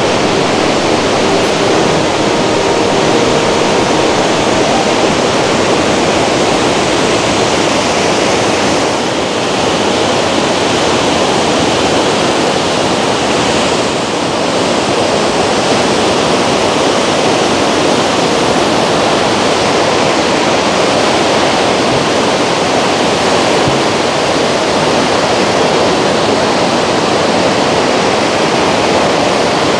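Waterfall pouring close by: a loud, steady, even rush of falling water.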